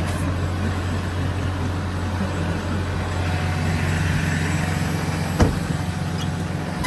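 Ram 5500's 6.7-litre Cummins inline-six diesel idling steadily, with a single sharp knock of the cab door shutting about five seconds in.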